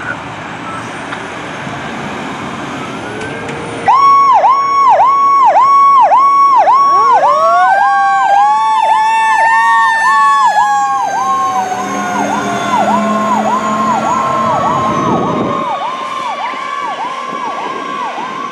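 Fire department aerial tower truck's sirens: a fast repeating yelp starts suddenly about four seconds in. A second siren soon joins it, rising steeply in pitch and then slowly falling.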